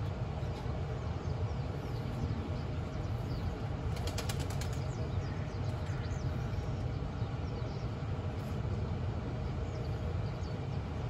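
Steady low outdoor background rumble. About four seconds in comes a quick run of about eight sharp clicks, under a few faint high chirps.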